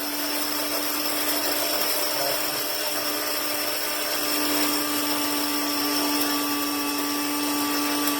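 Cuisinart Grind Central DCG-12BC blade coffee grinder running steadily, its motor spinning the blades through whole coffee beans with a constant hum.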